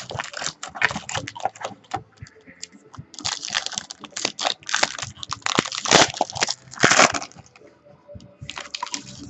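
Trading-card pack packaging being torn open and handled, giving crinkling, crackling noise in fits. A first stretch of crackling is followed by a louder one from about three seconds in, and a short burst comes near the end.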